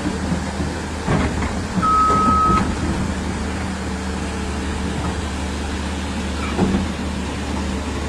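A vehicle engine running steadily, with a short single-tone beep a little under two seconds in.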